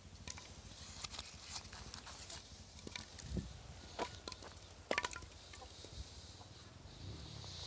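Polystyrene foam being snapped and crumbled by hand, a scatter of sharp crackles and snaps, the loudest about four and five seconds in, along with footsteps on a dry dirt path.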